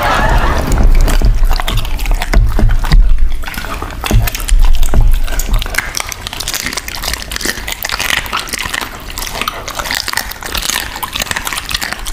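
Dogs, an Alaskan Malamute among them, licking and chewing raw chicken close to a microphone: a dense, irregular run of wet smacks and clicks.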